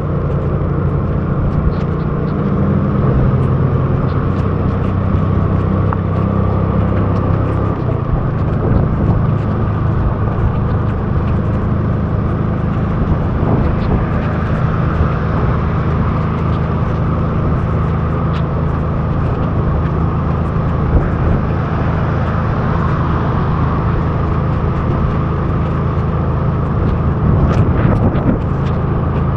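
Motor scooter engine running steadily at cruising speed, under the wind and road noise of riding on a wet road. Near the end, brief rubbing and knocks as a finger wipes the rain off the camera lens.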